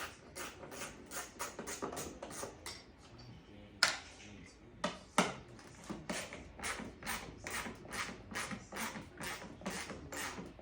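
Hand ratchet wrench clicking in steady strokes, about three a second, as the taillight's mounting screws are driven by hand, with two sharper knocks about four and five seconds in.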